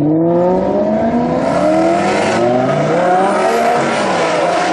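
Lamborghini Gallardo Spyder's V10 accelerating hard away from a standstill, its pitch climbing, dropping back at an upshift about halfway through, then climbing again.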